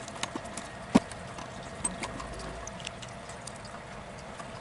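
Scattered small clicks and taps as the screws holding a graphics card's heatsink are tightened and the card is handled, with one sharper click about a second in, over a steady low background hum.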